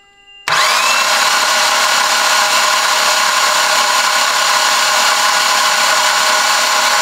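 Mitsubishi Lancer Evolution X's new 4B11T four-cylinder engine being spun on the starter motor with the spark plugs out. It makes a steady, even whir that starts suddenly about half a second in. It is being cranked to prime and build oil pressure before the first start.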